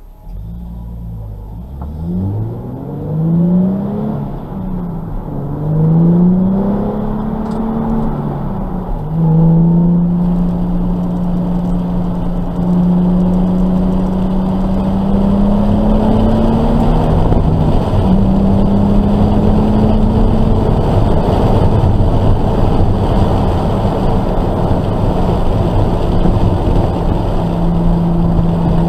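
Nissan 370Z's 3.7-litre VQ37 V6, heard from inside the cabin, accelerating hard: in the first ten seconds the pitch climbs and drops back at each of several quick upshifts. After that the engine runs at a steady high pitch with only small changes, over tyre and wind noise.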